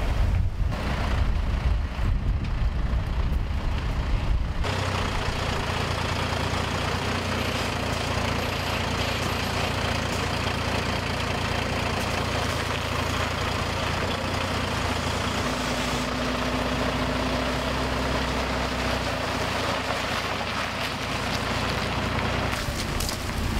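Volvo truck tractor's diesel engine running steadily. Wind buffets the microphone for the first few seconds.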